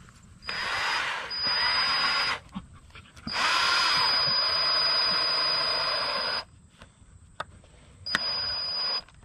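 Cordless drill driving a screw into a 2x4 joint, run in four trigger pulls: two short ones, a longer one of about three seconds, then a short one near the end. A high steady whine rides over the grinding of the screw into the wood.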